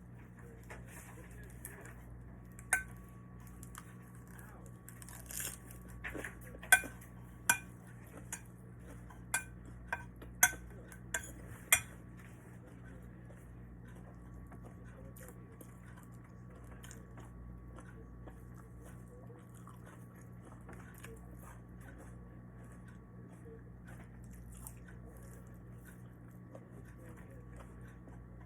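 Eating utensils clinking against plates and dishes: a string of about ten sharp clinks, then quieter for the rest, over a steady low hum.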